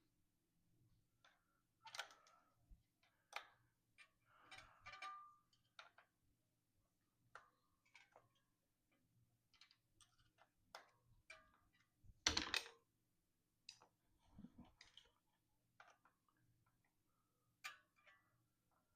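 Scattered small clicks and metal clinks of a hex key and parts being handled while a bicycle disc brake caliper's mounting bolts are done up by hand, with one louder knock about twelve seconds in.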